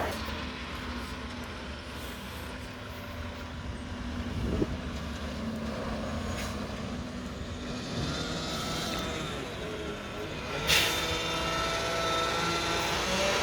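Mack garbage truck with a McNeilus front-loader body running, a steady low engine rumble. There is a sharp knock about four and a half seconds in and a short hiss near eleven seconds. A steady whine joins the rumble from about eight seconds in.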